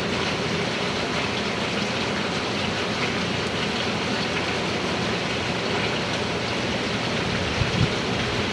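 Hurricane wind and heavy rain making a steady rushing noise, with two brief low thumps near the end.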